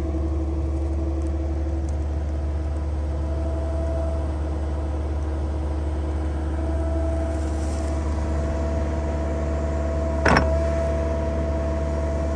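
Sany mini excavator running steadily, a low engine hum with a higher steady whine over it, as the bucket digs into hard, rocky ground. One sharp clank about ten seconds in.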